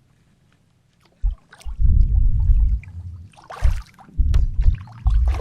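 Wind gusts buffeting the microphone in loud, uneven low rumbles that start about a second in, with a short hiss around the middle.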